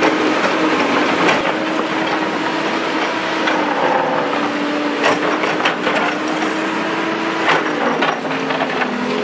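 Doosan DX225LCA hydraulic excavator's diesel engine running steadily, with scraping, knocking and crunching as its bucket digs through soil and broken rock. The engine note drops slightly near the end.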